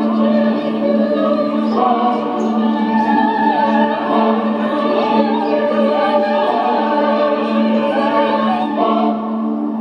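Film score of a wordless choir singing slow, wavering lines over a sustained low drone.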